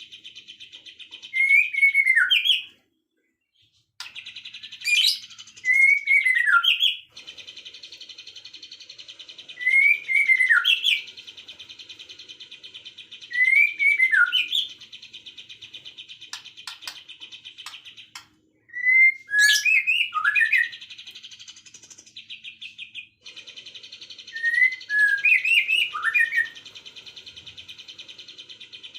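Songbird calls: a loud whistled phrase that rises and then falls, repeated about every three to four seconds, over a steady high buzzing trill that breaks off abruptly a few times.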